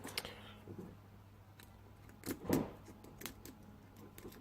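Lock picks clicking and scraping in the pin tumblers of a 70 mm Romak Alarm padlock as the lock is reset and picked again, with a louder metal rattle about two and a half seconds in.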